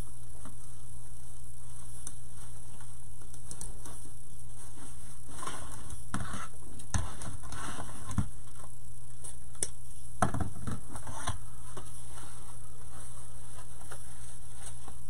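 Wired ribbon rustling and crinkling as it is looped and pinched onto a wooden bow-making board, with scattered light clicks and taps, busiest in the middle of the stretch. A steady low hum runs underneath.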